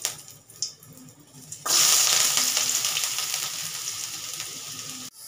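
Chopped onions tipped into hot oil in a kadai: a few light clicks, then about a second and a half in a sudden loud sizzling that slowly dies down as the onions begin to fry.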